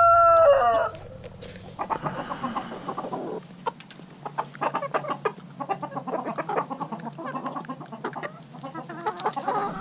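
Chickens being hand-fed raisins: a rooster's crow, the loudest sound, ends with a falling tail in the first second, then hens cluck softly in many short rapid calls as they feed.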